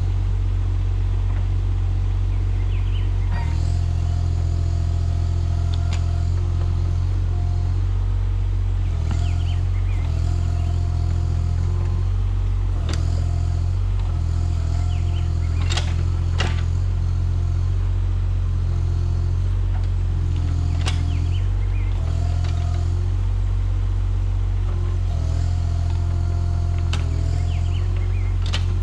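Mini excavator's diesel engine running steadily under load, with a hydraulic whine that steps up and down in pitch as the controls are worked, and a few sharp clanks, the loudest about 16 seconds in.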